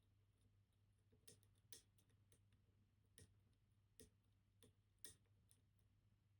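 A handful of faint, irregular metallic clicks from a lock pick and tension wrench working the levers of a MIWA PR high-security lever lock, over a steady low hum.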